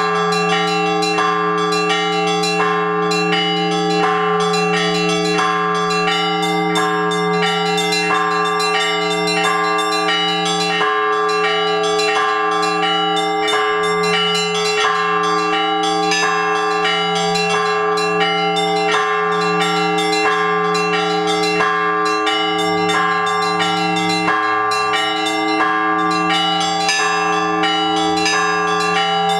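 Russian Orthodox church bells rung in a continuous peal of several bells: small bells struck rapidly, several strokes a second, over the slower, deeper strokes of larger bells, with all of them ringing on together.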